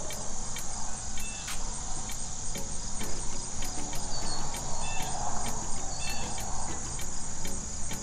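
Insects chirping steadily in a high, pulsing trill, with a few short, higher chirps scattered over it.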